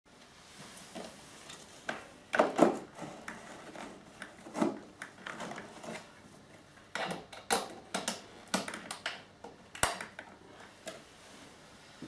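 Plastic knocks, clicks and scrapes from handling a Numatic George vacuum cleaner as its hose is pushed into the front inlet, a run of sharp knocks loudest about two and a half seconds in.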